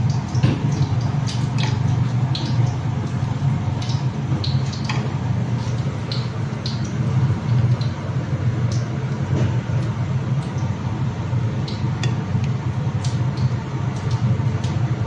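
Steady low machine hum with scattered short light clicks and clinks.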